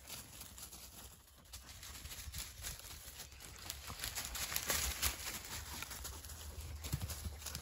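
Dry twigs crackling and leaf litter and ivy rustling as a springer spaniel pushes through woodland undergrowth, with scattered small footfalls. The crackling gets busier and louder in the second half, over a low steady rumble.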